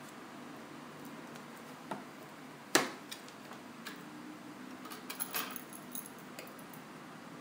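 Small repair tools and tiny phone parts clicking and tapping as a phone is worked on by hand: one sharp click about three seconds in, scattered light ticks, and a quick run of small clicks around five seconds in.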